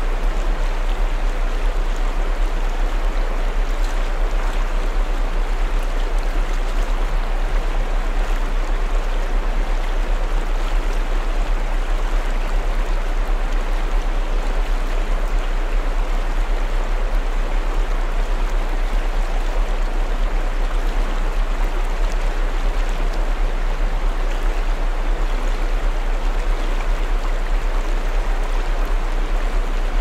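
Waterfall and shallow river rapids rushing over rocks, a steady even roar of water. Underneath runs a loud, deep, steady hum, the 7.83 Hz tone added to the track.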